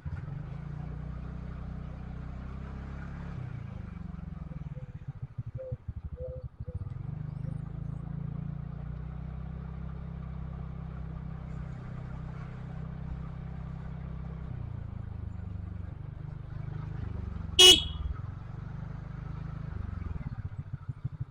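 A vehicle engine running at riding speed, its note rising and falling with speed. A short, loud horn beep sounds near the end.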